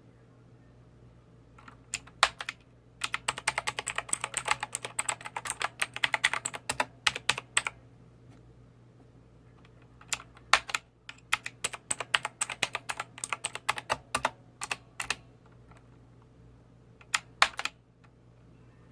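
Keys being typed on a Lutis LUNATIC K803 optical-switch gaming keyboard: a few single presses, then two fast runs of clicking keystrokes separated by a pause of about two seconds, and a last couple of presses near the end.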